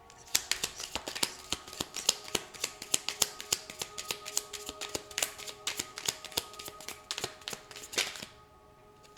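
A tarot deck being shuffled by hand: a rapid, irregular run of card clicks and slaps that stops about eight seconds in. Soft background music with steady held notes plays underneath.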